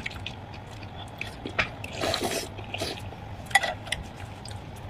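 Close-miked wet eating sounds: mouths chewing and slurping soft, saucy braised meat, with irregular short smacks and clicks and a longer slurp about two seconds in.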